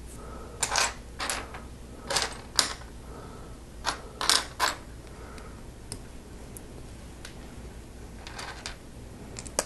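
Small plastic Lego pieces clicking and clattering as minifigure parts are handled and pressed together: a run of short sharp clicks over the first five seconds, a quieter stretch, then another cluster of clicks at the end.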